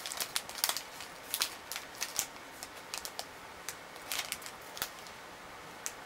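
Paper toy bank notes being handled and sorted on a tabletop: a scatter of short, crisp rustles and light taps at an irregular pace.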